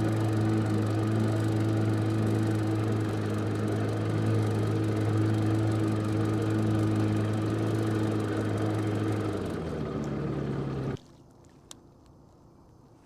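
An engine running steadily at an even pitch. It drops slightly in pitch shortly before it cuts off abruptly near the end.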